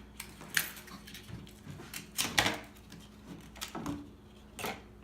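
Plastic toy parts and packaging being handled: several short rustles and clicks, the loudest about two and a half seconds in.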